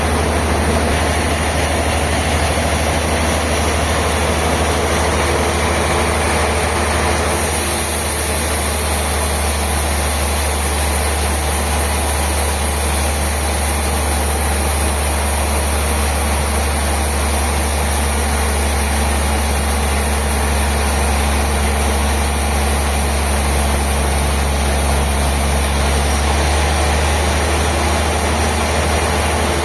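Sawmill machinery running steadily with a loud low drone like an idling heavy engine. A high hiss joins the sound about seven seconds in and drops away near the end.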